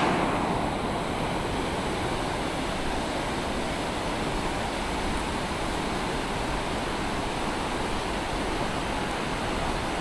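Steady rushing roar of the Katun River's rapids below the Chemal suspension bridge, slightly louder in the first second.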